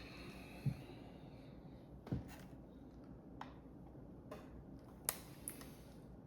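Light clicks and knocks of the cover being pushed and worked onto a sewing machine knee speed controller's box, about five separate taps spread over a few seconds.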